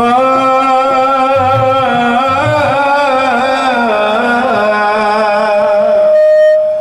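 A man's voice singing one long, wavering, ornamented phrase, loud and full. About six seconds in, it gives way to a single steady held tone.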